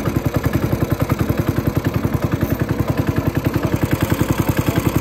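A small boat's engine running steadily at slow trolling speed, with a loud, even beat of about ten pulses a second.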